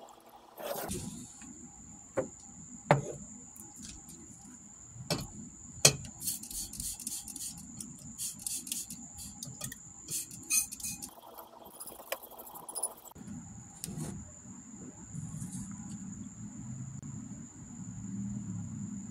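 Glass laboratory beakers clinking: a few sharp knocks, then about a second in the middle given over to a quick run of light taps and scraping as wet gold powder is worked out of one glass beaker into another. A steady high-pitched whine runs behind most of it.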